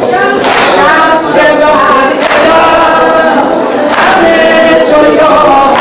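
A crowd of men's voices chanting a devotional chant together, held notes rising and falling, in a large echoing hall. A sharp beat cuts in now and then.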